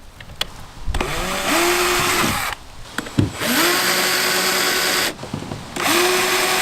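Cordless power drill run in three short bursts, each spinning up with a rising whine, holding steady, then winding down. It is driving #8-32 machine screws into nylon lock nuts to tighten the aluminum track down.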